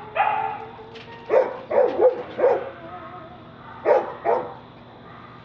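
A dog barking in a series of short barks: one longer call at the start, then a quick run of four barks and two more a moment later.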